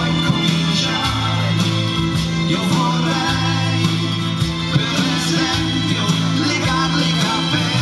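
A live pop-rock band playing, with a male lead vocal singing into a microphone over keyboards, acoustic and electric guitars and drums.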